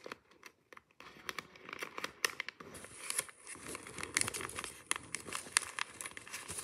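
Origami paper bunny stuffed with a twisted plastic bag, crinkling and crackling under the fingers as it is folded and pressed. The crackles start about a second in and come thicker and faster from about three seconds on.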